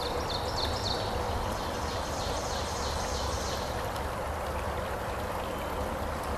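Small rocky brook running, a steady rush of flowing water. A bird sings a run of short high notes over roughly the first half.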